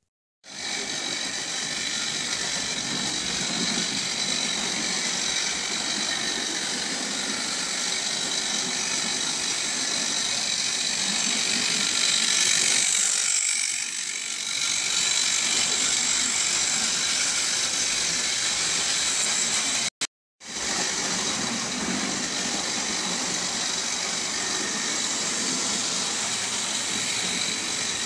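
Model railway trains running on the layout: the steady hum and whine of the locomotives' small electric motors and wheels on the track, swelling as a goods train passes close about halfway through. The sound cuts out briefly about two-thirds in, then carries on.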